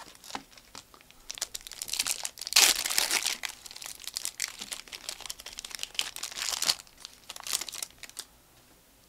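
The foil wrapper of a Panini Contenders basketball card pack being torn open and crinkled by hand: a dense crackling that starts about a second in, is loudest just before the middle, and stops about a second before the end.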